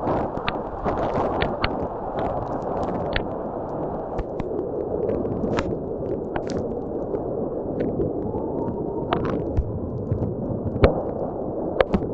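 Typhoon wind and heavy rain: a steady rushing noise with many scattered sharp taps and clicks.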